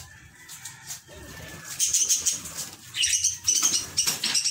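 Budgerigars chirping in quick runs of short, high calls, starting about two seconds in and busiest near the end.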